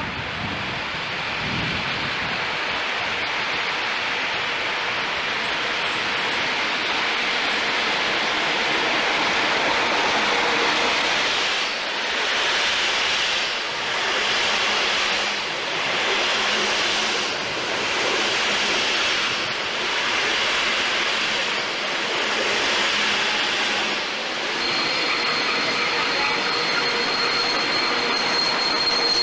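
A passenger train of coaches running past along the platform track: steady wheel-on-rail noise that builds as the train comes in, then dips and swells about every two seconds as the coaches go by. A steady high whine comes in near the end.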